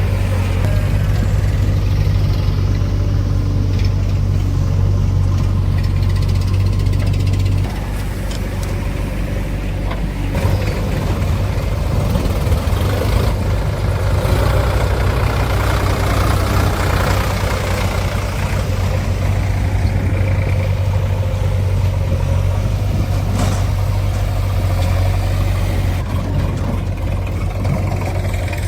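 A heavy diesel machine's engine runs steadily with a low hum. Its level drops slightly about eight seconds in.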